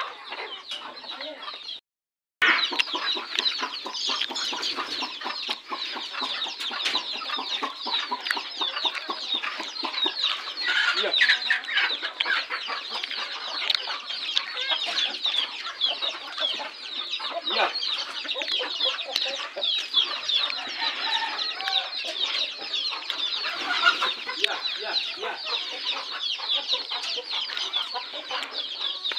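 A large flock of desi chickens clucking continuously, many birds calling over one another as they gather to be fed. The sound cuts out completely for a moment about two seconds in.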